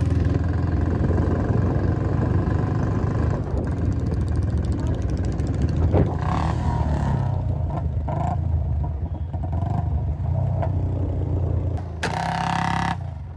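Royal Enfield Bullet motorcycle's single-cylinder engine running steadily while riding. A loud pitched tone sounds for about a second near the end.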